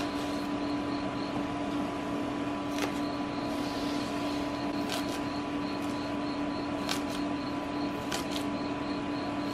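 Kitchen knife cutting through a leek onto a wooden cutting board: a handful of sharp, separate knocks a couple of seconds apart, over a steady background hum.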